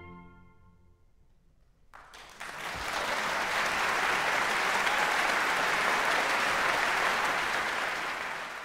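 The last chord of a baroque ensemble with trumpet, oboe, recorder and strings dies away in the hall's reverberation, then about two seconds in applause breaks out, builds quickly and holds steady, easing slightly near the end.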